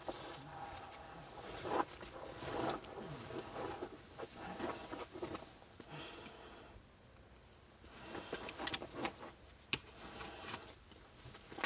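A person crawling on hands and knees over a dirt crawlspace floor: a disposable coverall rustling, with irregular scuffs and sharp knocks against the ground.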